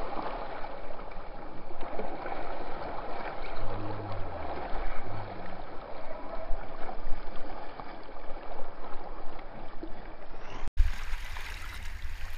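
Choppy water sloshing and rushing close to the camera as a kiteboard rides through the chop. The sound drops out for an instant near the end.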